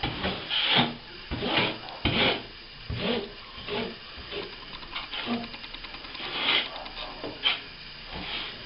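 A hand tool being rubbed over plaster in a series of irregular strokes, roughly one or two a second, as in working a plaster patch repair smooth.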